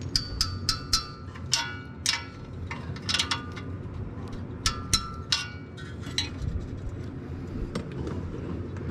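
Steel spanner clinking against the exhaust-pipe flange bolts of a power tiller's engine as they are worked loose by hand: irregular metallic clinks, each with a short ring.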